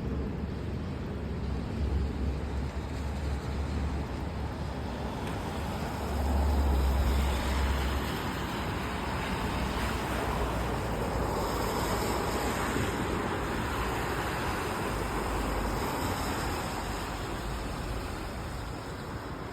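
Wet-street traffic in the rain: a vehicle passes with tyre hiss on the wet road, swelling in the middle and fading, over a steady low rumble.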